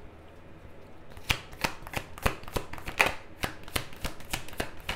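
A deck of tarot cards being shuffled by hand. After about a second of quiet comes a quick run of sharp card snaps and slaps, about four or five a second.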